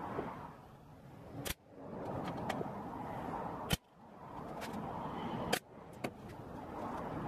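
Three sharp snaps about two seconds apart: a handheld pin nailer firing pins to fix a thin strip onto a wooden box. The snaps sit over steady background noise.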